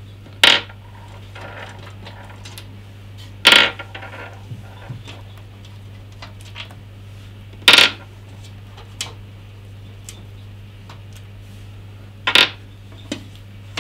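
Metal thumbscrews clinking as they are set down on a desk: four sharp clinks a few seconds apart, with small handling ticks between them.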